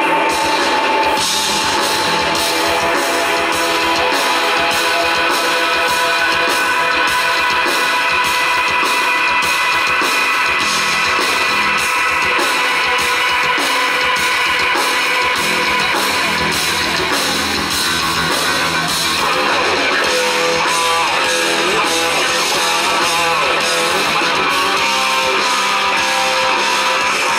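Live rock band playing an instrumental intro on electric guitars, bass guitar and drum kit, with a steady beat.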